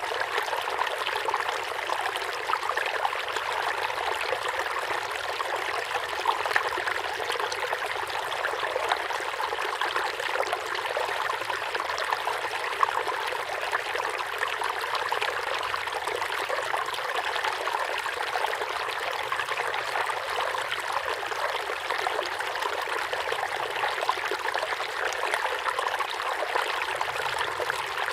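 River water flowing steadily, a constant rushing babble made of many small splashes.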